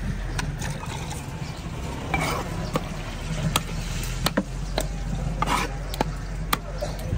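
Knife blade knocking sharply on a wooden log chopping block as catla fish flesh is cut, with scraping and handling noises in between. The knocks are scattered at first and come about twice a second in the second half, over a steady low background hum.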